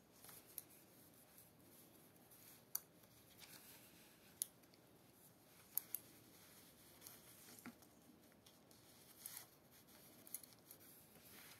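Near silence: faint background hiss with a handful of short, sharp clicks at irregular intervals.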